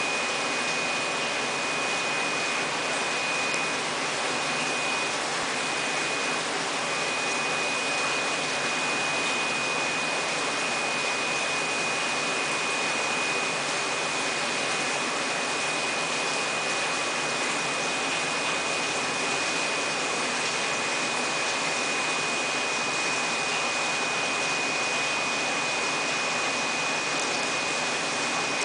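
Steady machine noise: a constant rushing hiss with a thin, high, unchanging whine over it.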